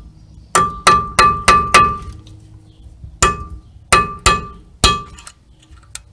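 Claw hammer striking a steel punch held against a brake rotor's retaining screw, about nine ringing metal clinks: a quick run of five, then four more spaced out. The blows shock the rusted screw to get it to turn.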